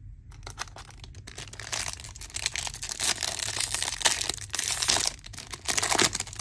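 A baseball card pack's wrapper crinkling and tearing as it is ripped open: a dense run of crackles that starts just after the beginning and is loudest in the middle and again near the end.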